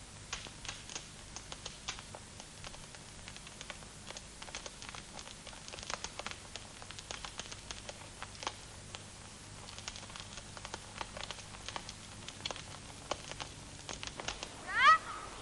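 Small irregular clicks and scratches over a faint steady hum, then near the end one short loud cat meow.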